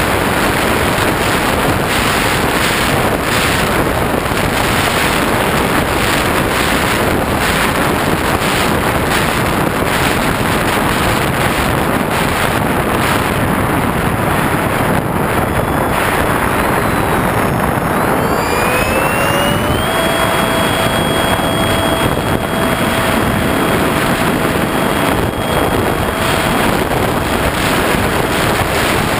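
Loud wind rush on the camera under the wing of a ParkZone Habu electric ducted-fan RC jet in flight. About two-thirds of the way in, the ducted fan's whine rises in pitch, holds steady for several seconds, then drops away near the end.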